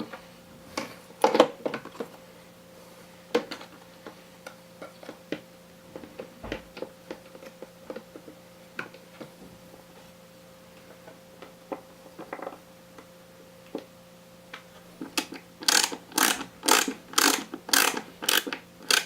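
Small clicks and taps of metal parts being handled as a screw is driven into the underside of a 3.5-inch hard drive to fix it in the iMac's drive bracket, ending about fifteen seconds in with a run of regular sharp clicks, about two a second. A faint steady hum sits underneath.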